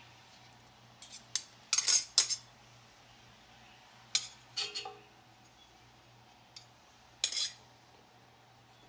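A metal utensil clinking and clanking against a cast iron dutch oven and its contents, in short clusters about a second in, around four seconds in and near the end, one clank ringing briefly. A faint steady hum runs underneath.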